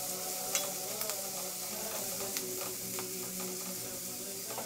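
Chicken, vegetables and scrambled egg sizzling in a hot pan on high flame as a spatula stirs and mixes them, with a few sharp clicks of the spatula against the pan.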